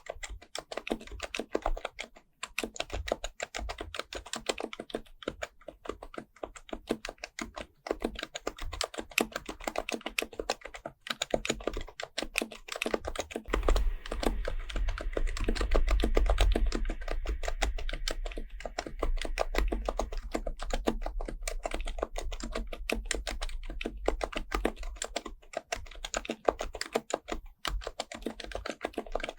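Happy Hacking Keyboard Professional Type-S with silenced Topre electrostatic-capacitive switches, typed on quickly and continuously, many keystrokes a second. From about 13 to 21 seconds in, the keystrokes come thicker and louder, with a low thud under them.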